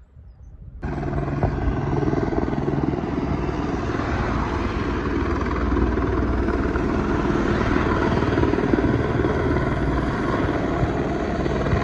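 Helicopter flying low: loud, steady rotor and engine noise that begins abruptly about a second in.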